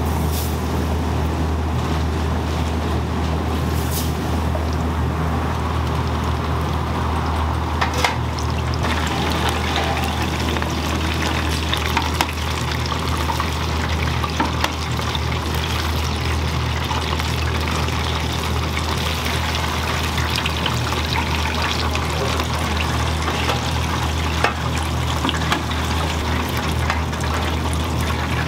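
Ramen-shop kitchen working noise: a steady low hum under a constant hiss of running and pouring water, with a few sharp clinks.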